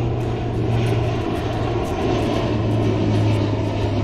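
Twin-engine propeller airliner on final approach passing low, its engines and propellers giving a loud, steady drone with a strong low hum.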